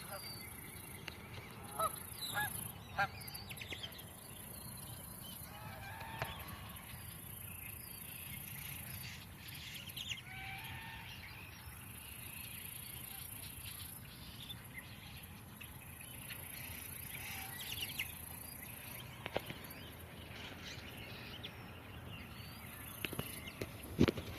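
Birds calling, with scattered short calls over a steady background hiss. A few louder calls come about two to three seconds in and again near the end.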